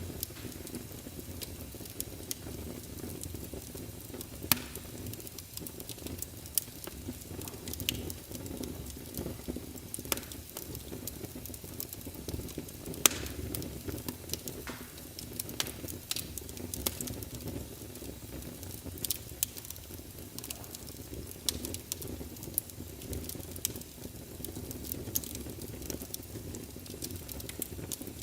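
Wood fire crackling in a fireplace: a steady low rumble of flames with irregular sharp pops and snaps, the loudest about four and a half seconds in and again about thirteen seconds in.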